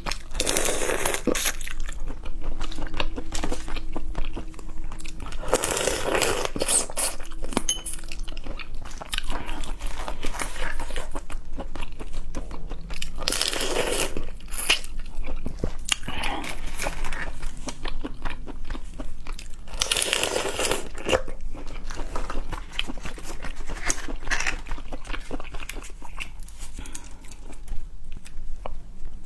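Close-up eating sounds: a person biting and chewing crunchy food, with dense small clicks and a louder crunch every several seconds.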